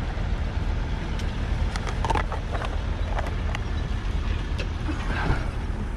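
An engine idling with a steady low rumble, with a few sharp clicks and knocks over it.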